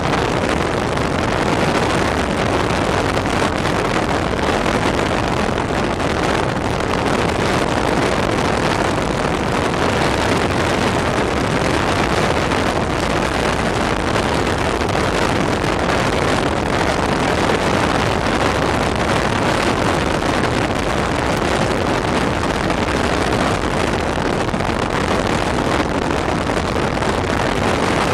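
Steady road and wind noise of a moving vehicle, even and unbroken.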